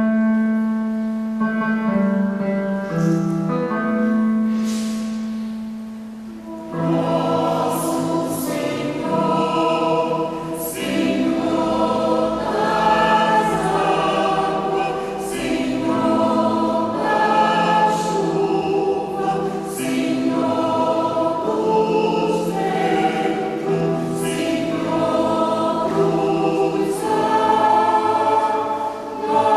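Choir singing with piano accompaniment. The first few seconds hold long sustained notes; at about seven seconds the singing comes in louder and fuller and carries on with moving phrases.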